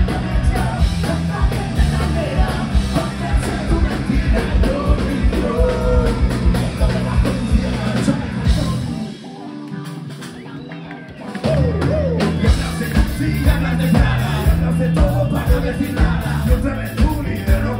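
Live band playing a rock and rap song loud through the venue sound system, with drums, bass, electric guitars and vocals into microphones. About nine seconds in the drums and bass drop out for a couple of seconds, leaving quieter sound, then the full band comes back in.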